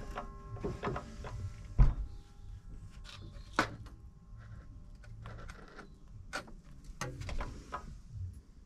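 Scattered clicks and metal knocks of steel box section being set and clamped in the vise of a metal chop saw, with the saw not running; the loudest knock comes about two seconds in.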